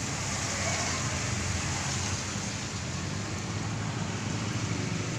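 An engine running steadily: a low, even hum under a steady hiss.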